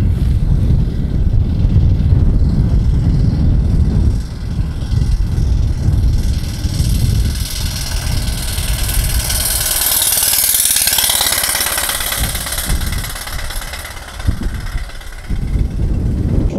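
Home-built steam motorcycle running at speed along the road, its steam hiss swelling as it closes in, peaking about ten seconds in and fading as it passes. Wind rumbles on the microphone in the first few seconds.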